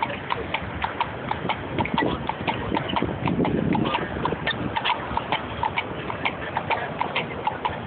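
Police horse walking on asphalt, its shod hooves clip-clopping in a steady walking rhythm.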